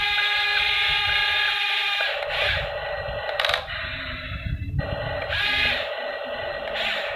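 Small electric motors and plastic gearboxes of a toy RC excavator whining as it works, the pitch and mix of tones shifting as different movements start and stop about two seconds in and again near the end.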